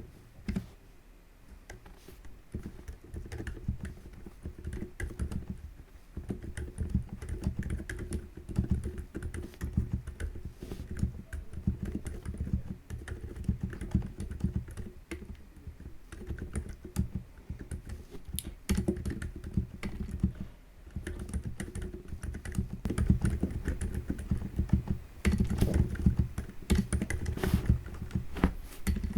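Typing on an Epomaker TH80 Pro mechanical keyboard fitted with Outemu Ocean silent linear switches: a steady stream of muted, low-pitched key strokes, louder about 25 seconds in.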